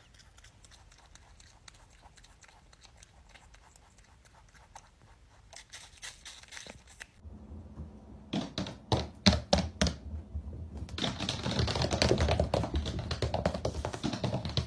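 Faint crunching of a small pet chewing an apple, then about seven seconds in a growing run of quick clicks and taps, like an animal's claws on a hardwood floor as it scrambles up close.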